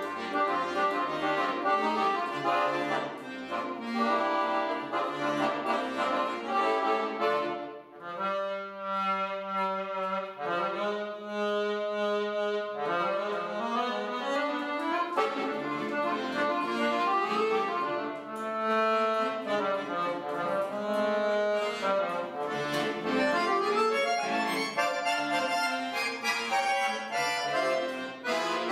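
Piano accordion played solo: busy passages of quickly changing notes and chords. About eight seconds in, the playing drops briefly, then long held chords sound for about five seconds before the quick passages resume.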